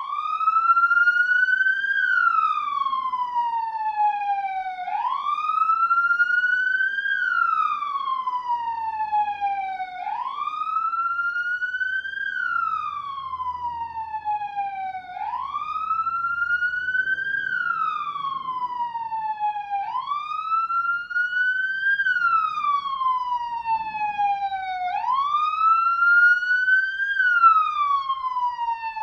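Police siren sounding in wail mode: a tone rising over about two seconds, then falling over about three, repeating about every five seconds.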